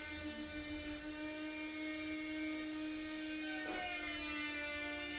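Steady electric machine hum with a whine held at one pitch, unchanging throughout, with a faint short sweep about three and a half seconds in.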